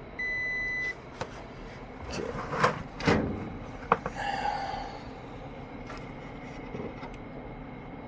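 A digital multimeter gives one steady high beep lasting under a second as it is set to measure resistance, followed by a few sharp clicks and knocks of handling.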